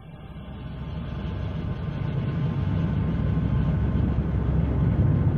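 Stormy-sea sound effect: a low, steady rumble of wind and heavy waves that fades in over the first couple of seconds and then holds.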